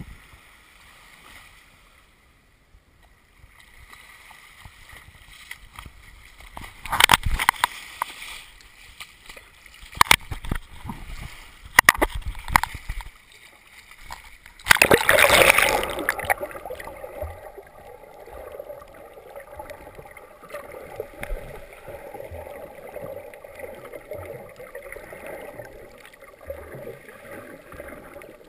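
Seawater splashing and sloshing against a waterproof camera as it is carried into the shallow sea, with several loud splashes midway and the loudest at about fifteen seconds in. After that comes a steady, muffled underwater gurgle with the camera submerged.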